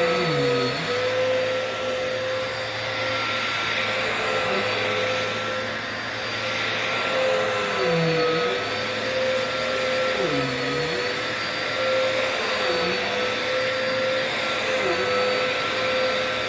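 Dirt Devil Multi-Surface Rewind upright vacuum cleaner running steadily: a constant motor whine over airflow hiss, with a lower tone that dips briefly in pitch several times.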